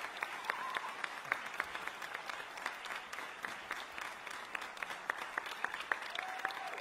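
Audience applauding: a steady wash of many hands clapping, with individual claps standing out.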